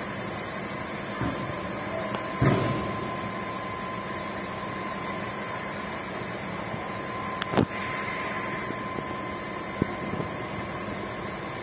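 A steady mechanical drone with a thin high whine running through it, broken by a sharp knock about two and a half seconds in and another about seven and a half seconds in.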